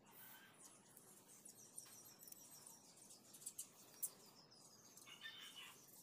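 Felt-tip marker scratching and squeaking faintly on paper as lines are drawn, with a couple of light ticks partway through and a brighter squeak near the end.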